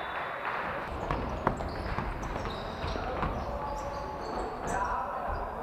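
Basketball play in a sports hall: a ball bouncing on the court and short high sneaker squeaks, over a steady reverberant hall noise.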